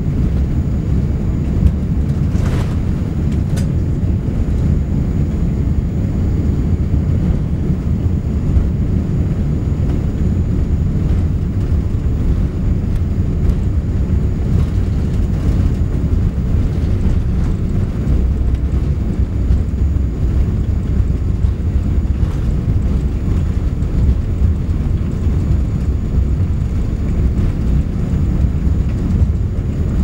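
Airbus A380 cabin noise while taxiing: a steady low rumble with no change through the stretch.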